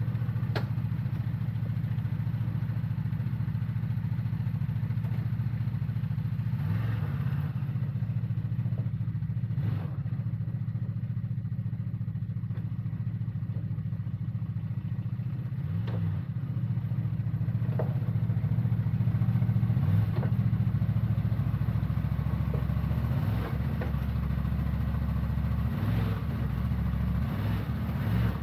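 CFmoto Cforce 1000's V-twin engine running steadily at low revs, with a few brief changes in engine speed and occasional light clicks.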